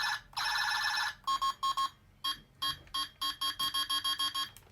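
Talking Buzz Lightyear action figure playing its electronic laser sound effect: two sustained buzzing tones, then a run of short pulsed zaps that quicken toward the end.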